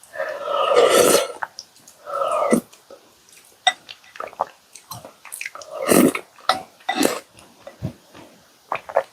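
Close-miked eating of chocolate chip cookies soaked in milk: wet slurps and chewing, with a long slurp in the first second, another around two seconds in, and a string of short mouth clicks and bites, the loudest near the end.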